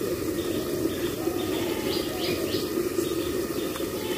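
Short bird chirps repeated a few times, clustered about two seconds in and again near the end, over a steady background noise.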